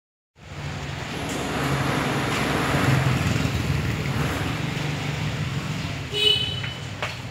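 Street traffic noise. A passing vehicle swells to its loudest about three seconds in and fades away, and a short high beep comes about six seconds in.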